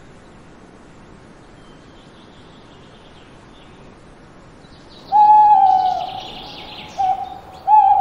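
Owl hooting: a long hoot about five seconds in, a short one, then another long hoot near the end. These come over a quiet background with faint small-bird chirps.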